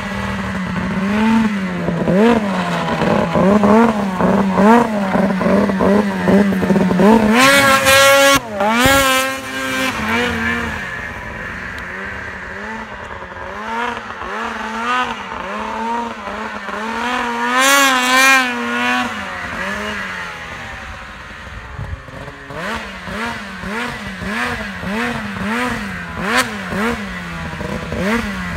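Ski-Doo 600 RS race sled's two-stroke engine revving up and down as the sled is ridden, the pitch wavering with the throttle. The revs climb high and hold twice, about a quarter of the way in and again a little past the middle.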